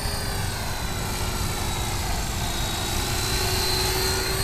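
Walkera Lama 3 coaxial RC helicopter in flight: a steady whine from its electric motors and twin rotors that rises slightly in pitch near the end, over a low rumble.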